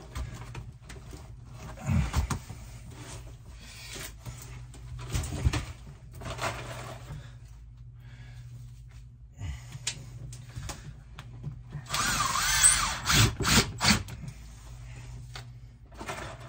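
Cordless drill running in a short burst about twelve seconds in, its motor whine wavering and rising, followed by several sharp knocks. Scattered knocks and thumps of panel handling come earlier.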